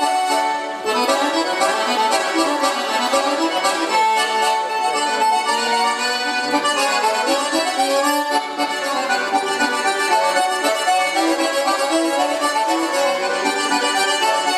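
Solo accordion playing a melody over chords, with brief breaks in the phrasing about a second in and again about eight seconds in.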